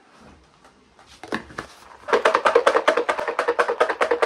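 Garlic cloves rattling inside a closed plastic jar, shaken hard to loosen their skins. A few knocks come first, then about two seconds in a fast, even rattle of about nine strokes a second.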